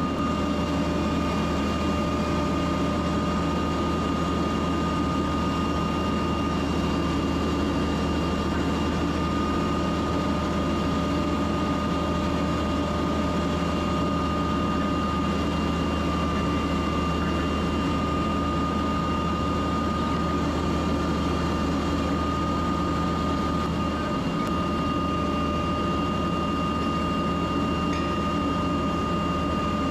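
Schramm water-well drilling rig running steadily on its Cat 3406 diesel engine: a deep, unbroken engine drone with a steady high whine over it.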